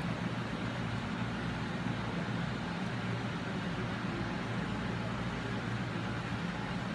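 Steady background noise with a low, even hum and hiss; no distinct events.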